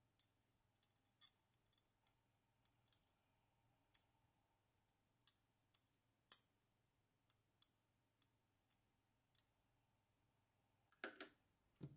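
Faint, scattered light clicks and ticks of small metal mounting stems being handled and fitted into the holes of a metal CPU-cooler backplate, about a dozen spread unevenly, the sharpest about six seconds in and a few close together near the end.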